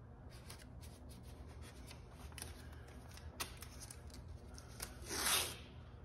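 Blue painter's masking tape crackling and clicking as it is unrolled and pressed down along an edge, with a louder, longer rip about five seconds in as a length is pulled off the roll.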